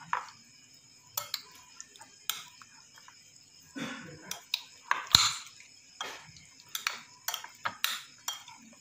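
Metal spoon clinking and scraping against a bowl as raw chicken pieces coated in ground spices are stirred and mixed, in irregular sharp clicks, the loudest a little past halfway.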